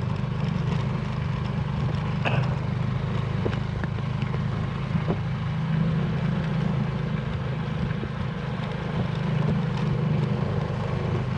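Motor scooter engine running steadily as it is ridden, a constant low hum with faint road and wind noise.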